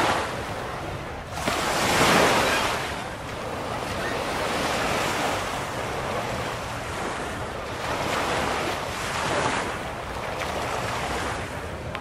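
Atlantic Ocean surf washing onto the beach, waves breaking and rolling in, the loudest about two seconds in and more near the end, with wind rumbling on the microphone.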